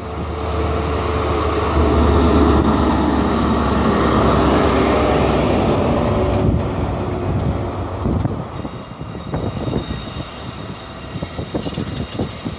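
Diesel engine of a Class 43 HST power car running as it passes close by, a loud, steady, deep drone. From about eight seconds in, the drone fades and the Mark 3 coaches roll past with a rattle of wheels on the rails.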